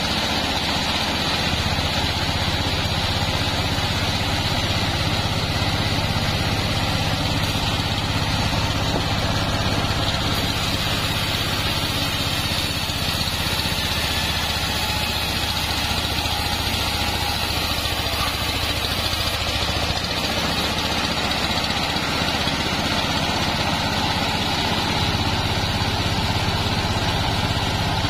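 Bandsaw mill sawing lengthwise through a sengon log: a steady low drone from the mill's drive with the hiss of the blade cutting, even all the way through.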